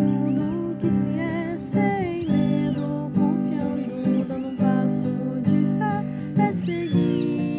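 Music: strummed acoustic guitar chords, with note changes and strums every half second or so.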